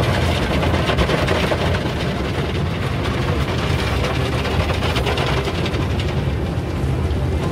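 Automatic car wash heard from inside the car's cabin: a steady rush of water spray and cloth wash brushes hitting the windshield and body, over a low rumble.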